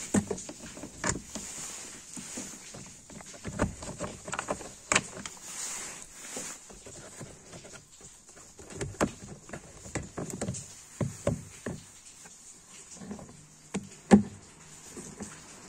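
Irregular plastic clicks, knocks and handling noise as the original door speaker and its plastic mounting ring are worked loose and pulled out of a 2013 Dacia Logan MCV's door panel. The sharpest knock comes about 14 seconds in.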